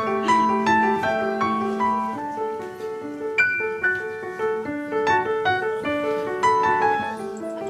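Piano played solo: a gentle flowing melody of single notes over held chords in the bass.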